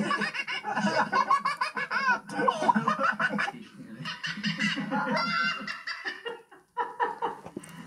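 A toddler laughing hard in repeated bursts, breaking off briefly about six seconds in.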